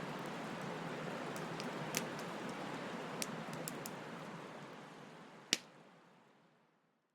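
Bonfire burning: a steady hiss of the flames with sharp, scattered crackles and pops, the loudest pop about five and a half seconds in. The sound fades away to silence near the end.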